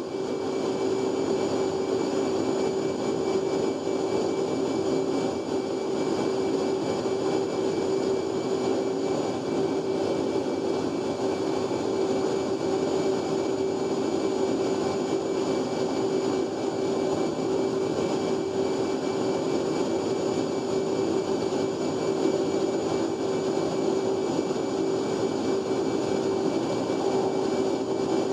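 Steady in-flight cockpit noise of an F/A-18 Hornet: engine and airflow roar with a constant humming note and fainter high whines, unchanging throughout.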